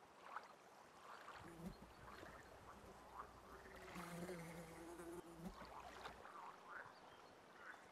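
Faint marsh ambience: an insect buzzing in a low, steady drone, briefly about a second and a half in and again for about a second and a half from four seconds in, over scattered faint chirping calls.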